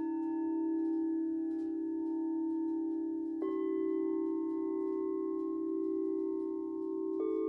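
Gorin henshō, a set of five tuned chime bells: a bell that was just struck is still ringing, and two more are struck about three and a half and seven seconds in, each a higher note than the one before. The tones blend into a long, steady ringing chord, with faint campfire crackling underneath.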